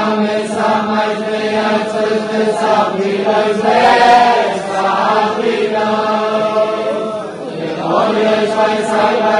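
Men's voices chanting a slow melody together, with long held notes and a short break about two-thirds of the way through before the chant resumes.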